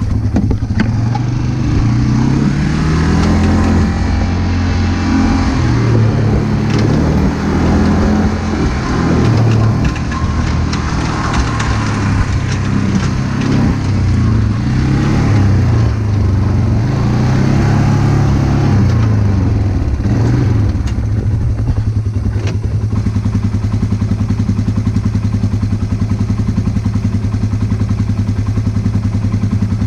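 Engine running under varying load, its speed rising and falling over and over for about twenty seconds, then settling to a steady run.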